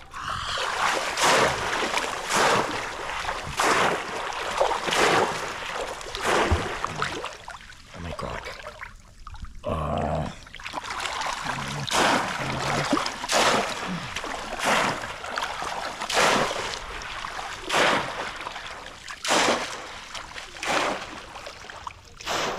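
Shallow paddy-field water splashed over and over by hands, one splash roughly every second.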